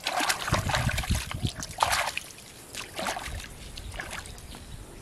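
Shallow pond water splashing and sloshing as hands work in it at the bank: a run of uneven splashes in the first two seconds, the loudest near the end of that run, then a few fainter ones.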